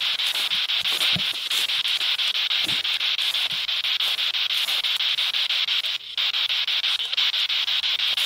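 Radio static from a ghost-hunting spirit box sweeping through stations: a steady hiss chopped into rapid, even pulses. It drops out briefly about six seconds in, and a few soft low thumps come in the first few seconds.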